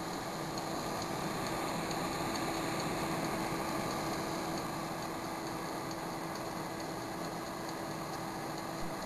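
Sunpentown countertop convection oven running: its fan blowing steadily with a low, even hum.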